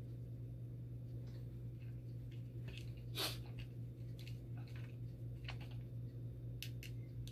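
Small clicks and rustles of small metal dialysis-machine parts and O-rings being handled at a clear plastic parts tray, the loudest about three seconds in. A steady low hum runs underneath.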